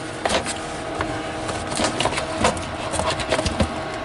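12 V DC fridge compressor running with a steady hum, overlaid with scattered knocks and rustles of handling.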